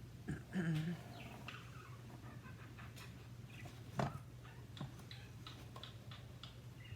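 Pet bird making soft, scattered chirps and squeaks, with a few sharp clicks, the loudest about four seconds in, over a steady low hum.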